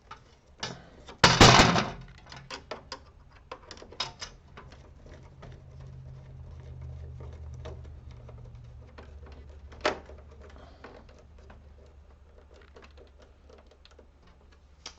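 Small clicks and taps of a screwdriver and plastic printer panels being handled while a screw is driven into the bottom of a laser printer, with a loud rattling clatter about a second in, a sharp click near the middle and a faint low hum for several seconds before it.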